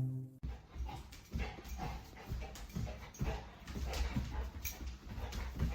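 A dog making small, quiet sounds: short whimpers and breaths, one after another, over a low steady hum.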